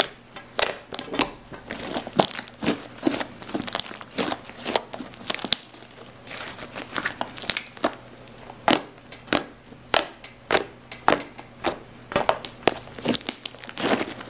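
Slime being squished and worked in the hands, giving irregular sharp crackling pops and clicks, several a second.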